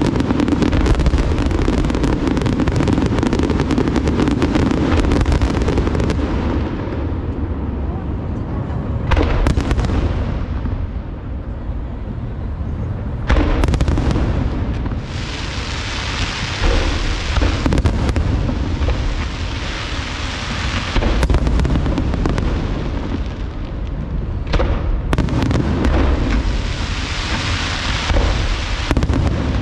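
Large aerial fireworks display: a continuous run of shells bursting, with several especially sharp booms and stretches of dense crackling from crackle-effect shells.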